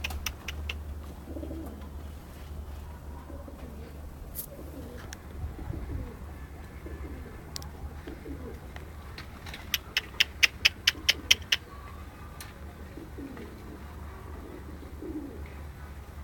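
Pigeons cooing, with low, repeated warbling calls throughout. About ten seconds in there is a quick run of about eight sharp clicks.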